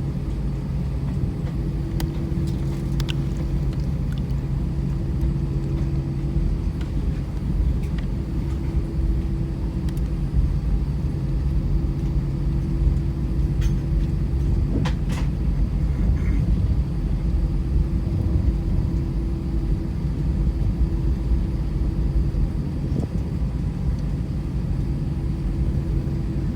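Airbus A319 cabin rumble while taxiing, with a steady engine hum and a few faint clicks and rattles.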